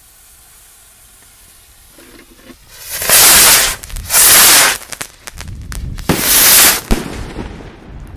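Salute rockets going off: three very loud whooshing blasts, each under a second long, about three, four and six seconds in, with sharp cracks and pops between and after them.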